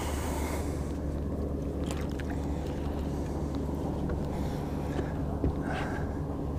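Minn Kota electric trolling motor running with a steady low hum, and a few light clicks over it.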